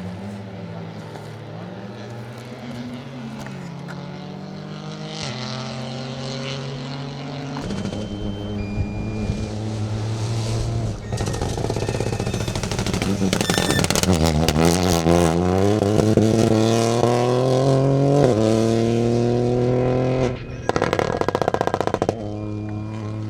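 Peugeot 208 Rally4's turbocharged three-cylinder engine under hard acceleration. The revs climb through the gears and drop at each upshift, about four times. Near the end the sound drops out briefly and turns choppy.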